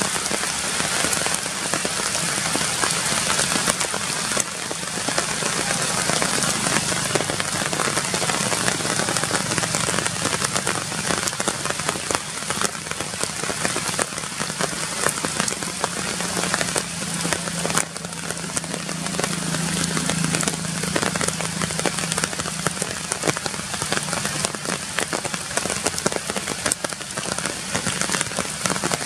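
Steady rain falling on forest foliage, a dense patter of drops on leaves.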